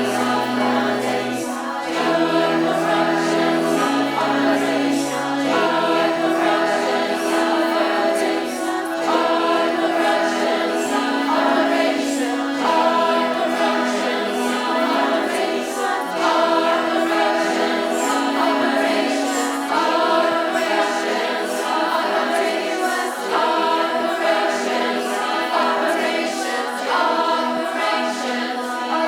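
Music: a choir of voices singing long held chords. The lowest held notes drop out about six seconds in.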